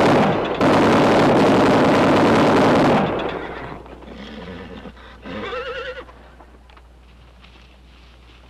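Gatling gun firing one long rapid burst with a brief break early on, stopping about three seconds in. About five seconds in, a horse whinnies briefly.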